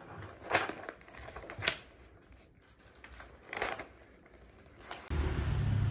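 Sheets of printed paper rustling as pages of a thick handout are turned, three brief rustles. Near the end a steady low noise cuts in abruptly.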